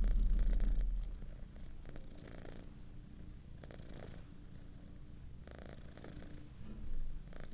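Grey tabby kitten purring while being stroked, strong for about the first second, then softer and steady.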